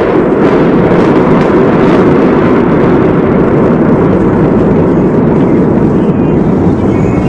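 Loud, steady rumble of high-rise towers collapsing in a controlled demolition, a dense low noise with no separate blasts.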